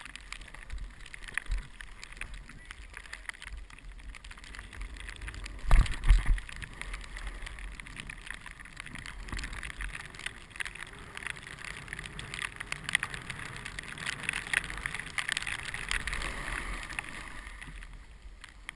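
Skis or snowboard sliding and carving down a snow slope, heard through a helmet-mounted camera: a continuous scraping hiss that grows louder in the second half. Two heavy low thumps about six seconds in.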